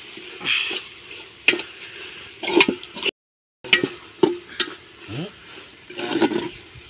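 A metal ladle scrapes and clanks against an aluminium pot while stirring onions and spice powders frying in oil, with a light sizzle. The masala is being sautéed until the raw smell of the chilli powder is gone. The sound breaks off briefly about three seconds in.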